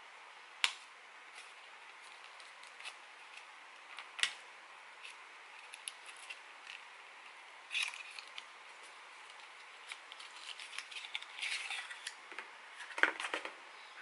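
Close-up handling of a lipstick and its cardboard carton: a few separate sharp clicks and taps of the plastic tube, then a busier run of small clicks and cardboard crinkling as the carton is opened, with the loudest click near the end.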